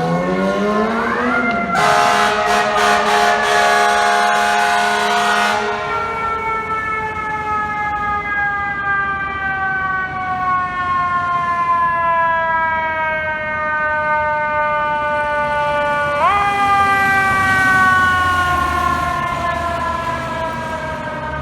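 Fire truck responding with siren and air horn. The siren rises, then an air horn blasts for about four seconds. The siren then winds slowly down in pitch for about ten seconds, is pushed sharply back up about sixteen seconds in, and falls slowly again.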